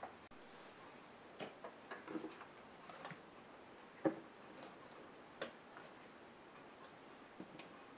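Faint, irregular clicks and taps of a laptop's screen bezel and hinges being handled and set on a work mat, with the sharpest knock about four seconds in.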